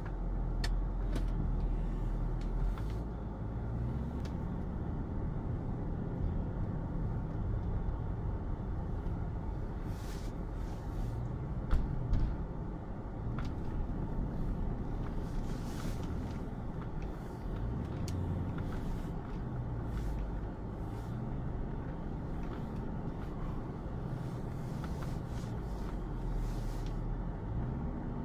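Audi A6 Avant 4.2 quattro's V8 engine heard from inside the cabin on a rough dirt track, the revs rising and falling, over tyre rumble. Scattered clicks and knocks from the rough ground come through, with one sharper knock about twelve seconds in.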